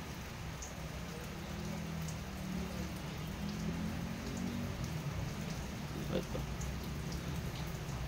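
Rain falling steadily, heard as an even hiss, with a faint low hum in the middle and a few light clicks about six seconds in.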